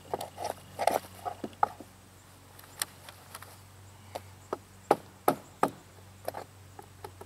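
Hammer knocking out old nails from a wooden split fence rail: a string of irregular sharp knocks of varying strength, the hardest three coming in quick succession a little past halfway.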